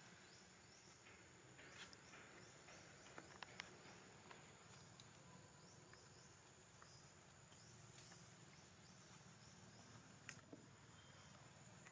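Near silence: faint outdoor background with a steady high hiss and a few soft clicks.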